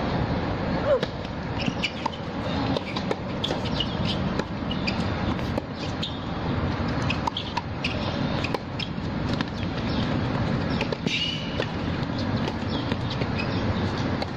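Tennis rally on a hard court: a serve struck about a second in, then racket hits and ball bounces at irregular intervals, over a steady low background rumble.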